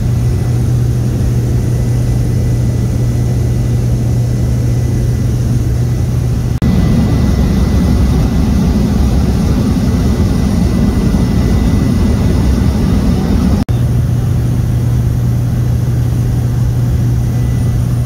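Cabin noise of a small high-wing propeller plane in flight: a loud, steady engine and propeller drone with a strong low hum. The drone's tone shifts abruptly about six and a half seconds in and shifts back about seven seconds later.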